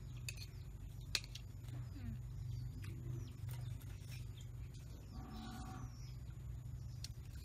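A cow moos once, about five seconds in, over a steady low hum. A few sharp clicks of a metal spoon against a plate come in between, the loudest about a second in.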